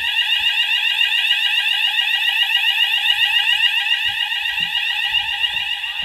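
Hochiki ESP addressable fire alarm sounders sounding continuously with a loud, fast-warbling tone: the system is in alarm after a manual call point test. Under it there are a few low knocks.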